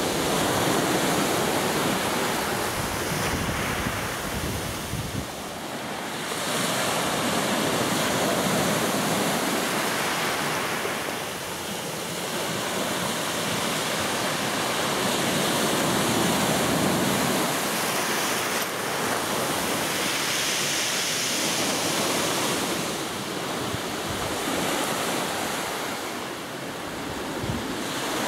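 Surf breaking and washing up a beach in small waves, rising and easing every five to seven seconds.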